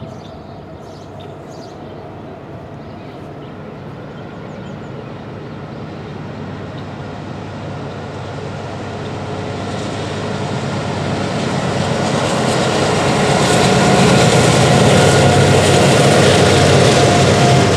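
BNSF freight train approaching and passing: the diesel locomotives' engines grow steadily louder over about fourteen seconds. The sound then holds loud as the locomotives and the tank cars roll by on the rails.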